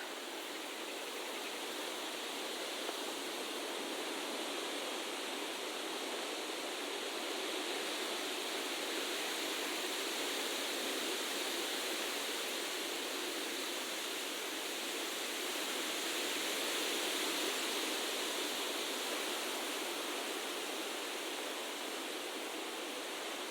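Steady, even rushing noise with no distinct events, swelling slightly and easing again.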